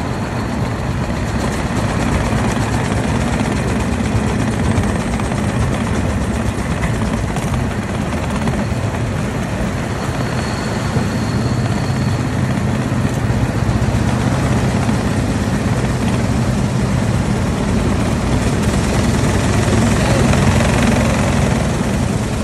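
A 1903 Cadillac's single-cylinder engine running steadily as the car drives along, with road noise around it.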